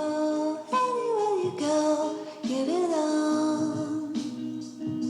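Background music with a woman singing a slow melody over sustained instrumental tones.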